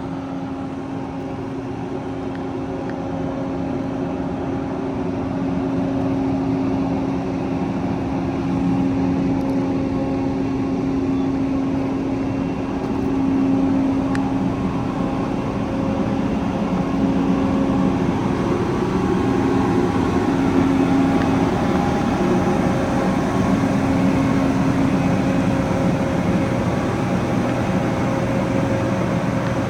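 Combine harvester engine running steadily while the machine is driven, a low, even hum that slowly grows louder over the first half.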